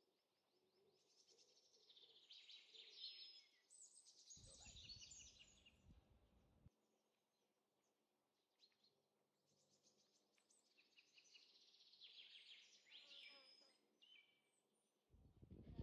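Faint bird song in two bouts of quick, high chirping phrases from small birds. A brief low rumble comes in about four seconds in and lasts about two seconds.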